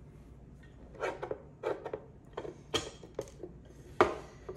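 Homemade cardboard shoebox lazy kate, with knitting needles through it, being handled and turned over: a run of irregular knocks and rustles, loudest about four seconds in.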